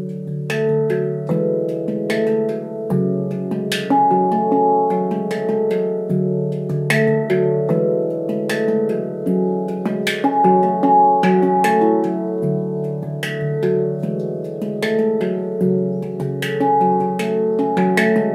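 Leaf Sound Sculpture handpan tuned to C# Locrian, played with the hands: a steady flow of struck notes, each with a sharp tap at the stroke, ringing on and overlapping the next.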